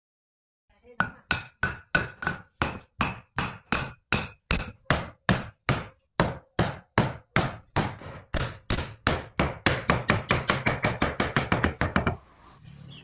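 Hammer striking repeatedly in woodworking, as in driving a chisel or tapping a joint together. The blows come at about two to three a second, quicken to about four or five a second after about eight seconds, then stop abruptly, followed by a fainter rustle.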